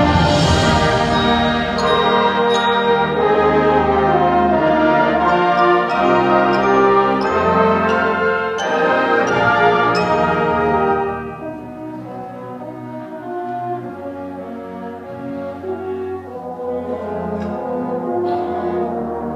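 School concert band playing, with the brass to the fore: a loud full passage that opens on a crash, dropping to a softer passage about eleven seconds in.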